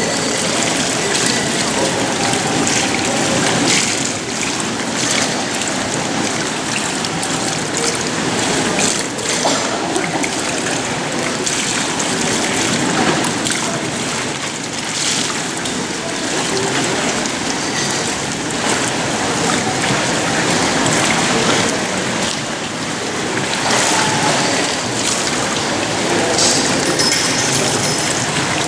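Steady sound of moving water in an indoor swimming pool, with water lapping and trickling.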